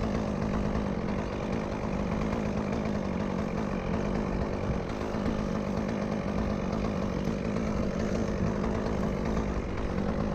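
Chainsaw running at a steady pitch, held at high revs.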